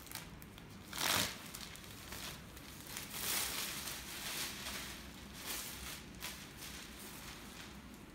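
Thin polyethylene disposable apron torn off its block with a quick, sharp rip about a second in, followed by plastic crinkling and rustling as the apron is shaken open and pulled on over the head.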